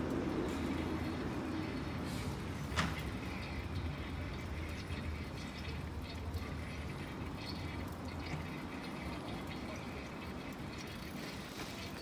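A Daihatsu kei minivan drives slowly past, its engine and tyres fading away over the first second or two, leaving a steady low traffic hum. A single sharp click comes about three seconds in.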